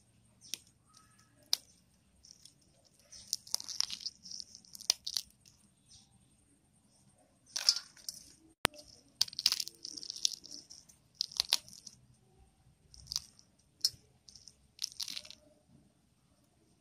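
Crisp fried wheat-flour triangle chips rustling and clattering against one another and the steel bowl as a hand tosses them, in short irregular bursts with a few sharp clicks.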